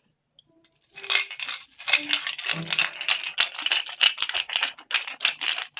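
Hand percussion being shaken and rattled in a dense, irregular patter of many small clicks, starting about a second in: a sound effect for waves crashing against rocks.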